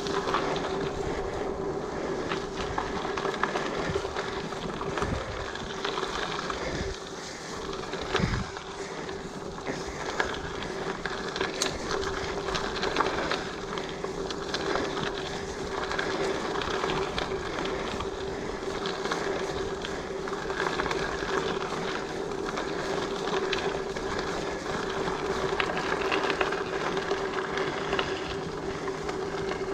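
Giant Fathom mountain bike ridden over a dirt and gravel trail: knobby tyres rolling on the loose surface and the bike rattling and knocking over bumps, with a steady hum underneath.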